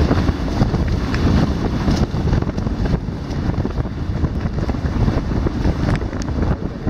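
Wind buffeting the microphone over water rushing and hissing past the hulls of a Hobie 16 catamaran under sail, loud and gusty throughout.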